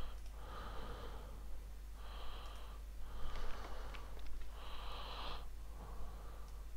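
A person's breathing close to the microphone, about five slow breaths in and out, with a few faint clicks.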